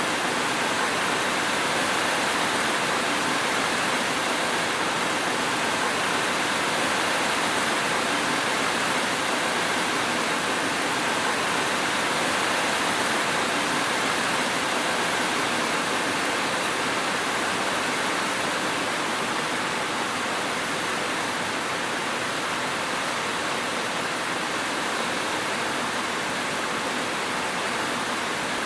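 Steady rainfall, a dense, even hiss without separate drops or thunder.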